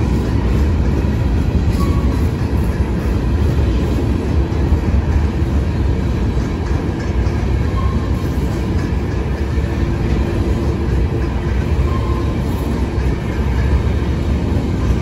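CN freight train rolling past, its railcars' wheels on the rails making a steady, continuous noise.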